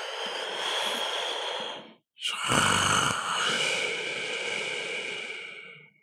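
A sleeping person snoring: one heavy, breathy snore ends just before two seconds in, then after a brief pause a longer, louder one with a rough start trails off near the end.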